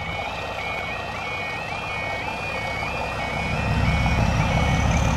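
Level crossing warning alarm sounding a two-tone electronic yodel that steps up and down in a steady repeating cycle, warning that a train is approaching. A low rumble swells under it about three and a half seconds in.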